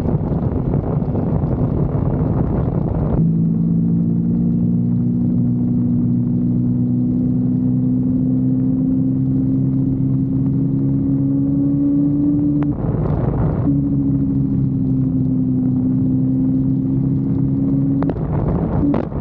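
Kawasaki Versys-X 250 parallel-twin engine running under way. After a rushing, noisy start, its note holds steady and climbs slowly in pitch. It is broken twice by a second or so of rushing noise, about two-thirds of the way through and again near the end.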